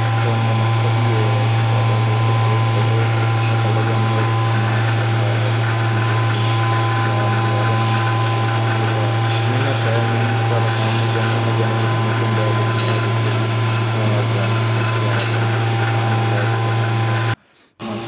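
Steady mechanical hum of a milking parlour's milking machine running, a low drone with a few fixed higher tones and faint voices under it.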